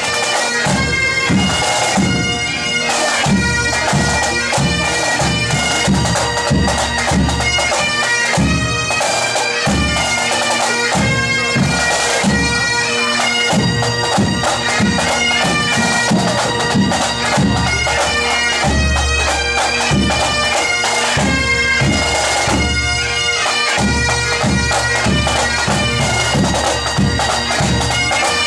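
Bagpipes playing a tune over a steady drone, with drums beating along: a pipe band.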